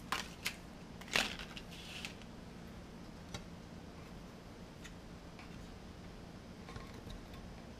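A few light clicks and taps from hands handling small computer hardware, a mini PC's metal drive-bay lid and parts, the loudest about a second in, then only sparse faint ticks over a faint steady hum.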